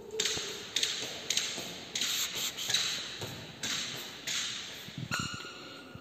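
Footsteps on a polished granite floor, each step a sharp slap fading into a short echo, at an unhurried walking pace.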